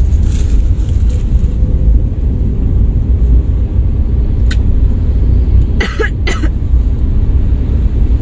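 Steady low rumble of a moving car heard from inside the cabin, with two quick staged coughs from a woman about six seconds in.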